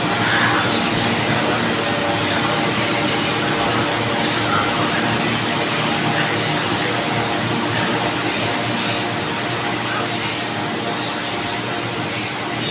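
Electric fan running steadily: an even whoosh with a low hum.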